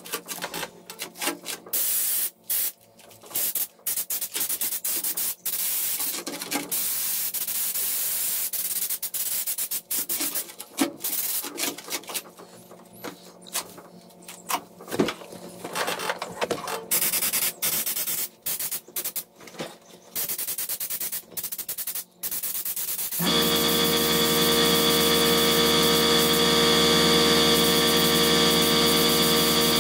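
Air-powered spray gun on a compressed-air hose spraying Raptor bed liner in repeated hissing bursts of a few seconds, with short pauses between trigger pulls. About two-thirds of the way through the spraying stops and an air compressor starts, running loud and steady with a constant hum.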